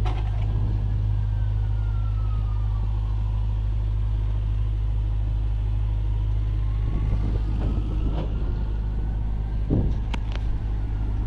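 Truck-wash vehicle's engine running with a steady low rumble, heard from its cab, with a faint whine that slowly falls and rises again. A few knocks come near the end.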